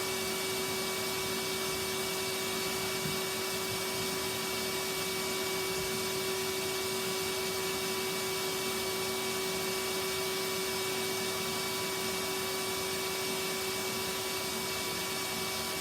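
Vacuum cleaner running steadily, its motor giving a constant whine over the rush of air.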